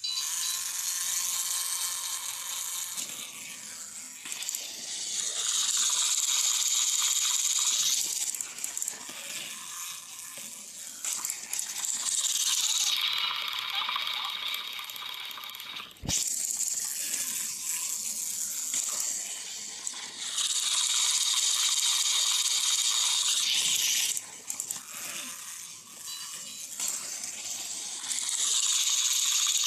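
Small motorised plastic toy trains whirring and rattling along plastic track. The noise swells loud for several seconds at a time and then fades, again and again, as the trains pass close. A single sharp knock comes about sixteen seconds in.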